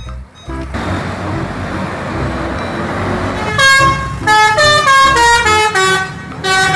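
A bus's multi-trumpet 'telolet' horn playing a stepping tune of long held notes, starting about halfway in, after a few seconds of steady noisy rush from the passing bus.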